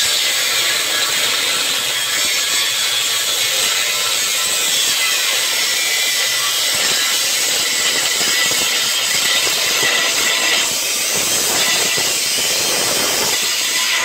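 Drill Master power tool with a saw blade cutting through the steel exhaust pipe at the catalytic converters, a steady, harsh metal-cutting noise.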